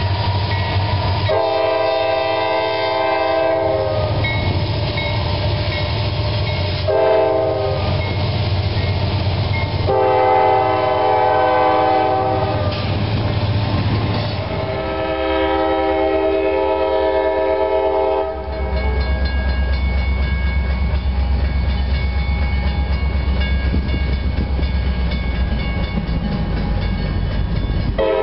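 Diesel freight locomotive's multi-chime air horn sounding four blasts, long, short, long, long, over the rumble and wheel clatter of a passing freight train. For the last ten seconds or so the horn stops and only the train's low rumble remains.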